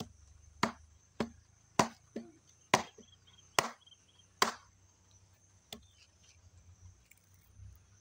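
Curved sickle blade chopping into a palmyra palm fruit on a log: about eight sharp strikes in the first four and a half seconds, then one lighter strike.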